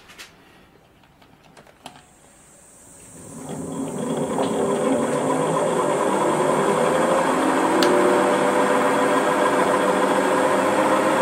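Milling machine's spindle motor starting about three seconds in, coming up to speed within a second or so, then running steadily with a hum and a faint high whine. A few light clicks come before it starts.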